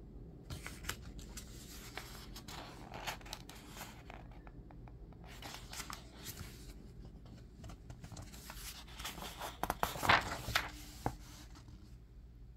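Pages of a thick paperback workbook being turned by hand, the paper rustling and crinkling in three spells, the loudest near the end.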